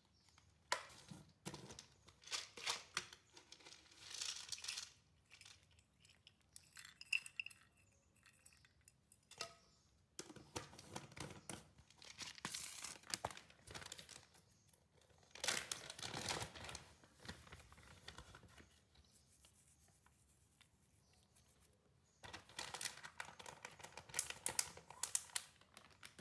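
A dwarf cat crunching dry kibble from a glass bowl, the crackly chewing coming in several bouts of a few seconds with short pauses between.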